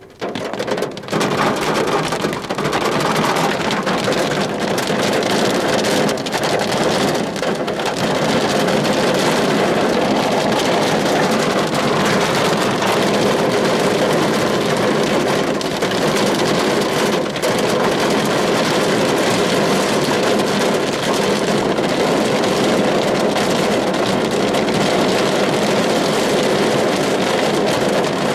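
Dense hail, stones a little over 1 cm across, and heavy rain pelting a car's roof and body, heard from inside the car as a steady drumming made of countless small hits.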